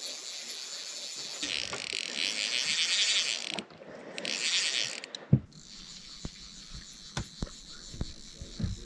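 Fly reel clicking in a rapid ratchet as a hooked trout is played, in two spells a few seconds long. A sharp knock about five seconds in is followed by scattered light clicks.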